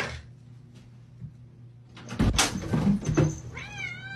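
A quick run of knocks and thumps about two seconds in, then a cat starts a long, drawn-out meow near the end.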